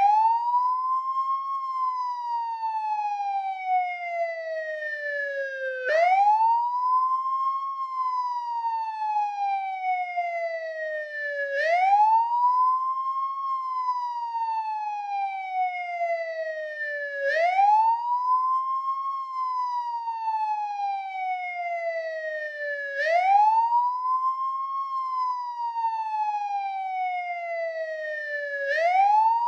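American police car siren on the wail setting. Each cycle rises quickly, then falls slowly over about four seconds, and the cycle repeats about every six seconds.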